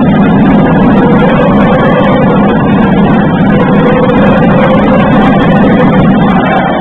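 Loud, steady din of a crowd filling a basketball hall, with a faint held tone running through it.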